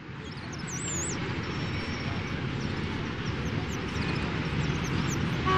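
Town street ambience fading in: a steady rumble of traffic with short, high chirps scattered over it.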